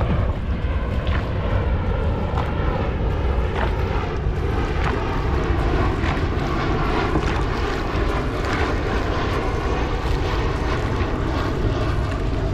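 Wind rumbling steadily on the microphone over a moving dragon boat, with the paddles splashing into the water in a regular rhythm of about one stroke a second.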